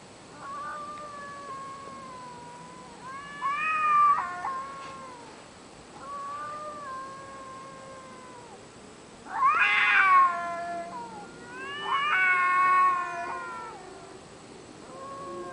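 Cats caterwauling outside a window at night: a series of long, wavering yowls, each one to two seconds long, rising and falling in pitch, the loudest about ten seconds in.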